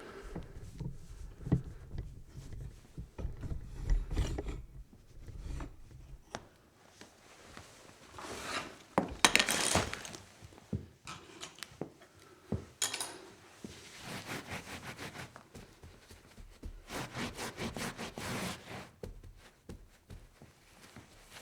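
Foley of a spill being cleaned up: thumps and knocks of handling during the first few seconds, then bursts of rubbing and wiping strokes on a hard surface with scattered clicks and scrapes.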